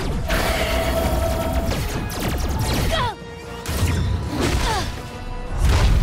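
Cartoon battle sound effects over a music score: energy-blast zaps that sweep down in pitch and several heavy booming impacts, one after another.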